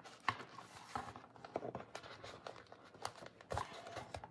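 Soft rustling of paper and card with scattered light taps and clicks as a hand-sewn journal is handled and threaded with needle and thread. The loudest tap comes about three and a half seconds in.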